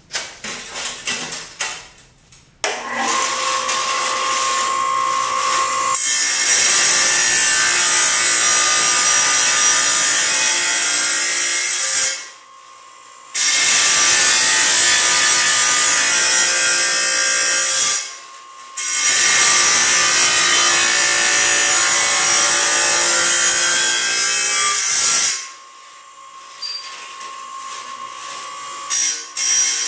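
A jobsite table saw spins up with a rising whine about three seconds in, then cuts through a ceramic tile with a loud, harsh grinding noise. The cutting breaks off twice for a moment as the tile is fed through. Near the end the blade spins free with a steady whine.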